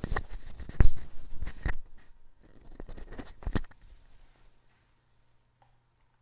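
Clicks, knocks and rustling from a person moving about and handling things close to the microphone, the loudest knock about a second in, stopping after about four seconds. After that only a faint steady hum remains.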